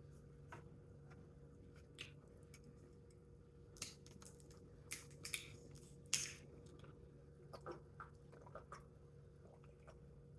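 Close-miked chewing and mouth sounds of a person eating noodles and salmon: faint scattered smacks and clicks, louder for a few seconds around the middle, over a low steady hum.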